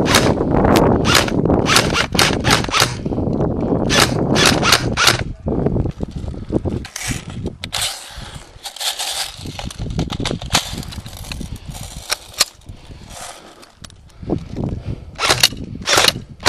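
Airsoft guns firing: sharp cracks in quick spurts through the first five seconds over a loud low rushing noise, then a quieter stretch, and another run of shots near the end.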